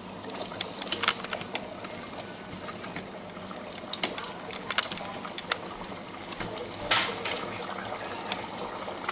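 Hot oil frying Mars bars that have just been lowered into it: a steady sizzle full of small pops, with a louder burst about seven seconds in.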